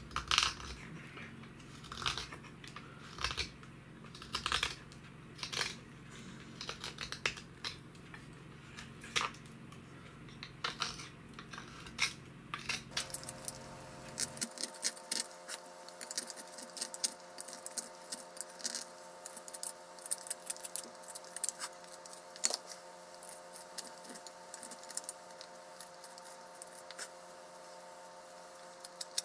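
Knife blade shaving thin curls off a wooden spoon blank in repeated short slicing strokes, about one a second at first, then quicker and lighter strokes from about halfway.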